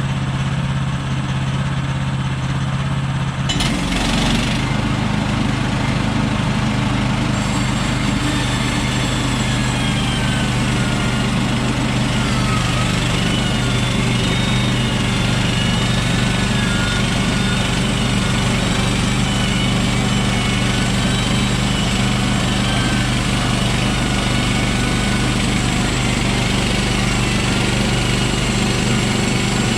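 Woodland Mills HM130 Max band sawmill's gas engine idling, then throttled up about three and a half seconds in and running steady, with a wavering high whine over it as the band blade runs through the log.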